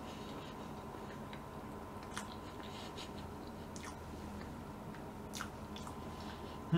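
A person chewing a mouthful of soft cake with closed lips: faint wet mouth clicks now and then. Right at the end a short, loud hummed voice sound rises in pitch.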